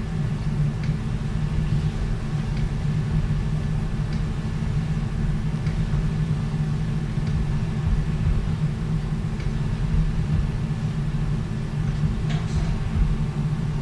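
Steady low hum of operating-room equipment, with a few faint ticks over it.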